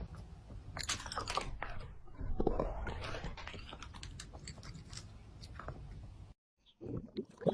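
A pet chewing crunchy food close to the microphone: a run of irregular crunches and bites that stops suddenly a little after six seconds in.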